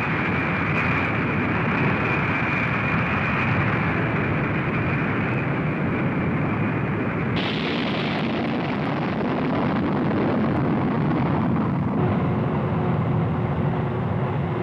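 B-52 Stratofortress jet engines running at high power: a loud, steady rush of jet noise with a high whine over it. The whine cuts off abruptly about seven seconds in, and a low steady hum joins near the end.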